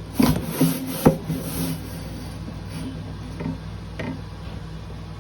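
Refrigerator coil-cleaning brush rubbing and scraping against the coils and frame, busiest in the first two seconds and then in a few scattered strokes, over a steady low hum.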